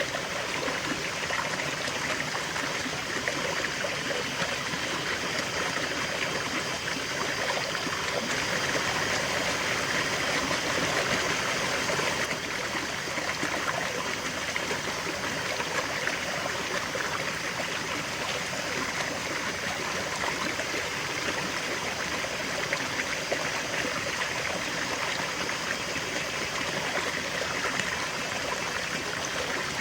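River water flowing and babbling over stones in a steady rush, swelling slightly around a third of the way through.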